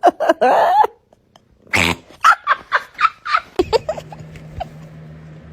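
A cat's quick string of short chirps and mrrps, with a brief wavering call near the start and a short pause about a second in. A steady low hum comes in a little past the halfway point, under fainter calls.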